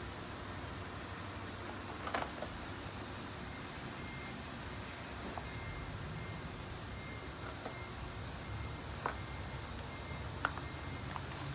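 Steady outdoor background hiss. A faint, thin, high steady tone runs through the middle, and a few light clicks and taps are scattered through it.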